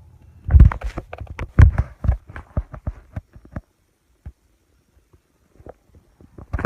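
Stomach rumbling: a quick run of bubbly gurgling pops for about three seconds, then a few scattered gurgles after a short lull.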